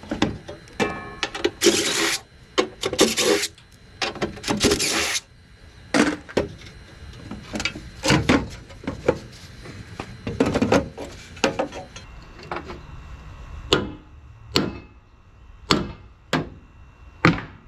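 Hand-tool work on the metal parts of a dismantled air conditioner: irregular sharp knocks and clanks, with a few longer rasping scrapes about two to five seconds in.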